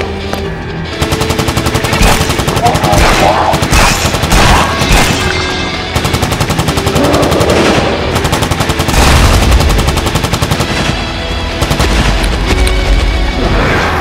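Rapid automatic rifle fire in long sustained bursts, with a few short breaks, over a music soundtrack.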